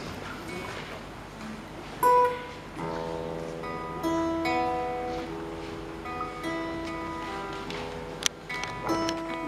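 An acoustic guitar ensemble starts to play: one loud plucked note about two seconds in, then strummed chords with long held notes over them. Before that there is only faint room noise.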